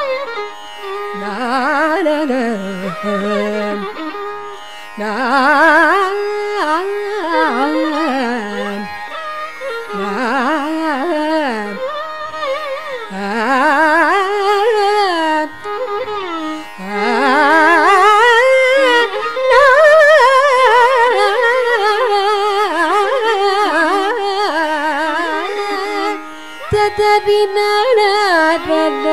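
Carnatic classical music in raga Latangi: a heavily ornamented melodic line, its pitch constantly sliding and oscillating, over a steady drone.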